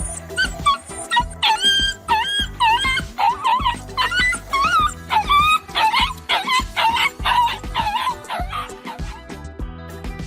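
African wild dogs calling: many short, high-pitched yips and whines that bend up and down in pitch, following one another quickly throughout, over background music.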